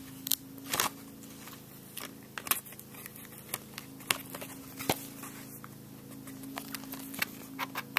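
Plastic DVD case being handled: scattered sharp clicks and crinkles at irregular moments, over a steady low hum.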